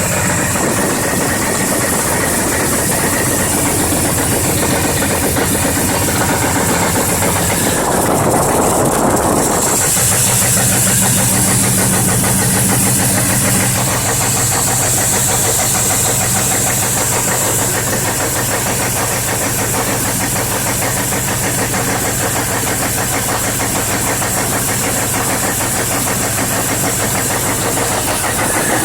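A 1992 Chevy Silverado's 5.7 L 350 TBI V8 running steadily with a rapid, regular tick, which the owner cannot place as a bad lifter or an intake or exhaust manifold leak. About eight seconds in there is a louder, noisier stretch lasting a couple of seconds.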